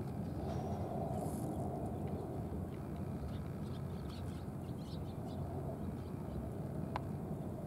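Steady low outdoor rumble, with a few faint high chirps in the middle and a single sharp click near the end.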